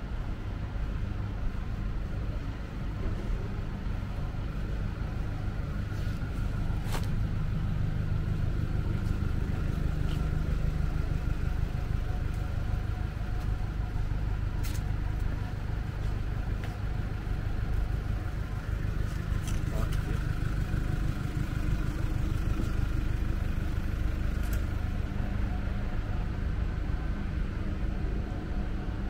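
Street ambience: a steady low rumble of motor traffic, with a few brief sharp clicks.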